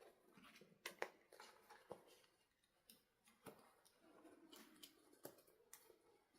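Faint handling sounds: scattered small clicks and taps over light rustling.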